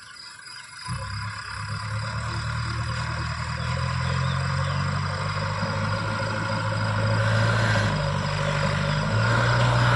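JCB 3DX backhoe loader's diesel engine running while it works, coming back in about a second in after a brief lull and growing louder, its note shifting a couple of times near the end.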